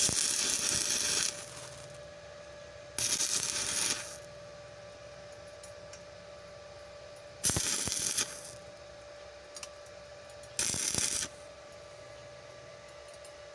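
Stick (arc) welding on steel pipe: four short bursts of arc crackle, each about a second long, as tack welds are laid.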